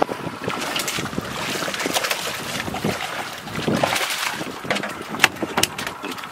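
Wind buffeting the microphone and water noise around a boat at sea, with scattered sharp knocks and clatter, most of them in the last couple of seconds.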